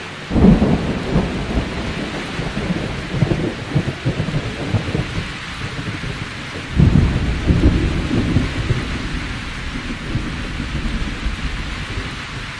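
Thunderstorm: steady rain with rolling thunder, one roll breaking about half a second in and another about seven seconds in.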